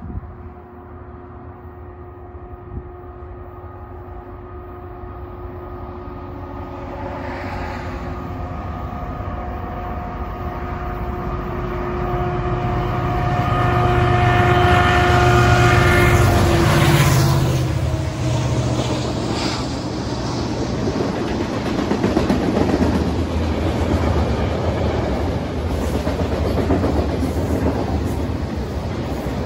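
Freight train led by GE ET44AC and EMD SD70M-2 diesel locomotives approaching and passing below. The engines' rumble and a steady whine grow louder, and the whine drops in pitch as the locomotives pass about halfway through. Then covered hopper cars roll by with a steady wheel rumble and occasional clicks at the rail joints.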